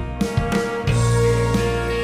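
Background music: a guitar-led track with a steady beat and a heavy bass line.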